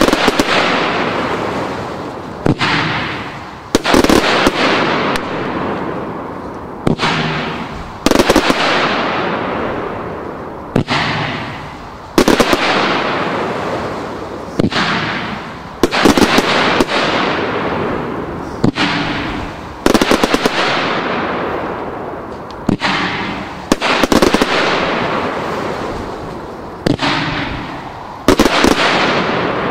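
Category 4 professional firework cake (Brocade Blitz) firing shells that burst with loud bangs about every two seconds, sometimes two close together. Each bang is followed by a long fading crackle as the brocade stars burn out.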